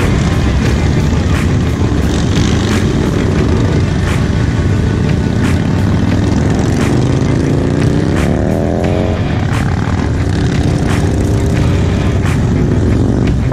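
Cruiser motorcycles running: a steady low engine rumble as bikes pull out and ride past one after another. One engine note rises in pitch as a bike accelerates, from about seven to nine seconds in, and another rises more gently near the end.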